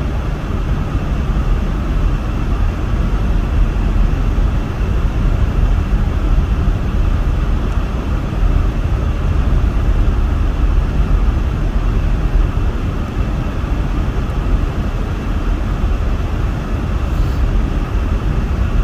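Steady in-cabin driving noise of a car on a snow-covered highway: a low rumble of tyres and engine, with the defroster fan blowing hard to keep the windshield clear.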